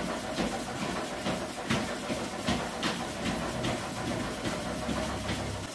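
Feet striking a home treadmill's moving belt in a brisk walking rhythm, about two and a half steps a second, over the steady rumble of the belt and rollers.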